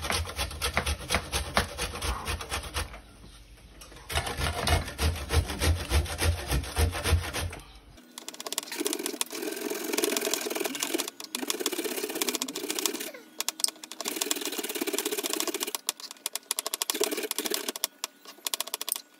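Dried coconut rasped on a four-sided steel box grater standing in a steel bowl: a run of quick, rhythmic scraping strokes, with a short pause about three seconds in and a few brief pauses later.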